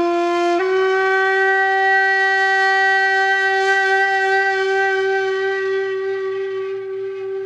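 One long held note on a horn-like wind instrument, played as a logo intro sound. The pitch steps up slightly just after the start, then holds steady, easing a little in loudness near the end.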